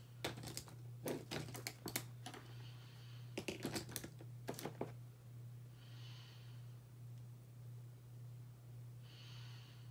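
Quick sharp clicks and taps of makeup tools and cases being handled, through the first five seconds, then two soft breaths. A steady low hum runs underneath.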